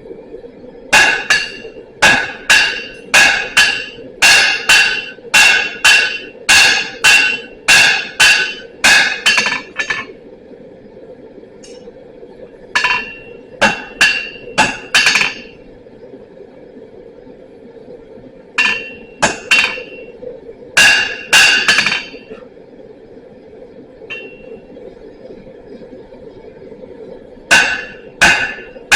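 Blacksmith's hammer striking steel on an anvil, each blow ringing: a run of about two blows a second for some nine seconds, then shorter bursts of blows with pauses between, while forging hand tools.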